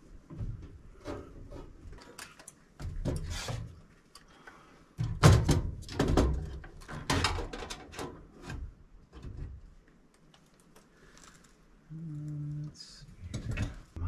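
Irregular metallic knocks and clunks as sheet-metal parts inside a gas furnace cabinet are handled and shifted by hand. The loudest clunks come about five to eight seconds in, and a brief low buzz sounds near the end.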